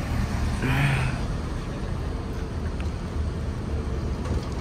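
A motor vehicle's engine running with a steady low rumble, with one short, brighter sound about a second in.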